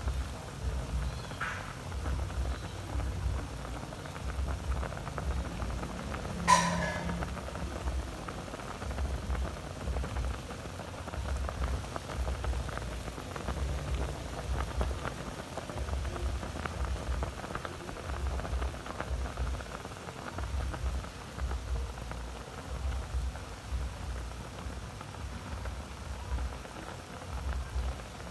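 Sweet pork bubbling and sizzling in its sauce in a pan, a steady crackle of fine pops. About six and a half seconds in comes a single sharp, ringing clink, like a utensil striking the pan.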